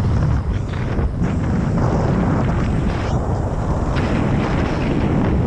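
Heavy wind buffeting a helmet-mounted microphone on a rider swinging on a rope beneath a UH-60 Black Hawk in flight, over a deep steady rumble from the helicopter. The wind rises and falls in gusts.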